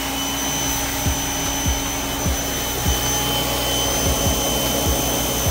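Pressure washer running steadily, its motor and pump giving a constant hum with a high whine, while the jet hisses against a car wheel and tyre. A soft knock repeats roughly every half second or so.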